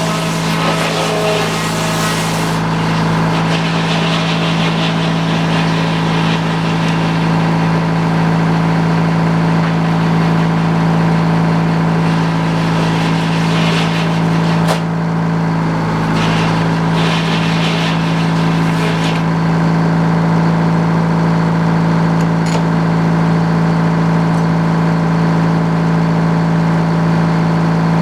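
Sawmill's engine running steadily at constant speed, with a higher hiss coming and going a few times.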